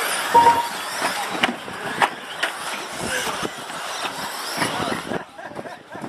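Radio-controlled model cars racing on an off-road track: a steady mix of motor and tyre noise with a few sharp knocks. The sound drops quieter about five seconds in.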